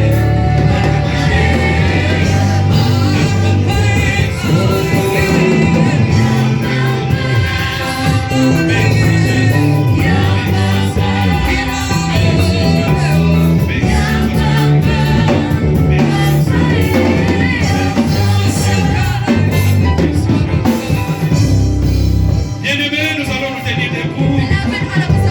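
Loud gospel worship music: voices singing over instrumental backing with a heavy bass line.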